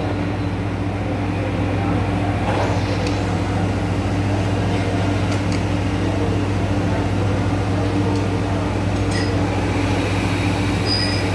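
Steady electric machine hum, a motor running at constant speed, with a couple of faint clicks late on.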